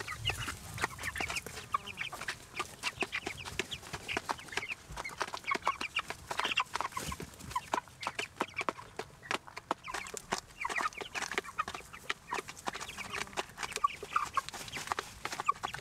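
A flock of young broiler chickens peeping and clucking with many short, high calls, amid a constant run of sharp ticks.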